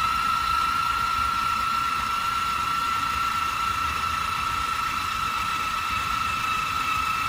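A small 12V electric motor from the car jack kit running steadily, with a constant high whine over a steady hum and no change in speed.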